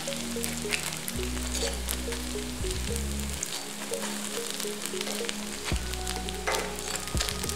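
Hot oil sizzling and crackling as hoi krok fry in a dimpled pan, with metal spoons clicking and scraping as the pieces are scooped and turned. Background music with a steady bass line runs underneath.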